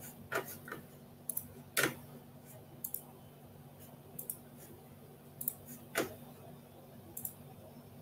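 Scattered small clicks and ticks, about nine of them at uneven gaps, the sharpest about two seconds in and about six seconds in, over a low steady hum.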